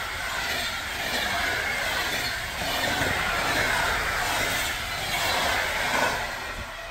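Passenger coaches of an express train rushing past close by at speed: a steady loud rush of wheels on rail and moving air. The noise drops off near the end.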